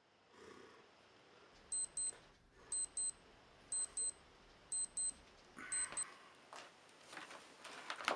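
Digital alarm beeping in quick high-pitched double beeps, one pair about every second, five times: a wake-up alarm going off. After it stops, bedding rustles near the end.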